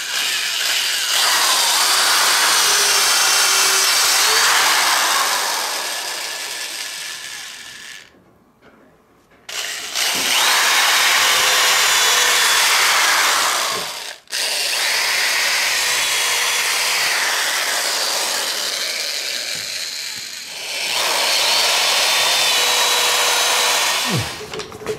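Corded electric hand drill running as it bores small holes into a wooden stair tread, in several long runs of a few seconds each with short breaks between.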